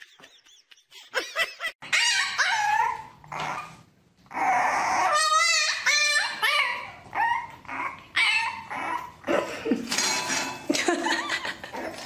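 A dog whining and yipping: a long run of short, high-pitched whimpers and yelps, each bending in pitch.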